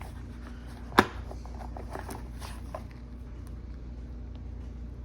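A small plastic hard case for a red dot sight being handled and opened: one sharp click about a second in, then a few lighter clicks and rattles, over a steady low hum.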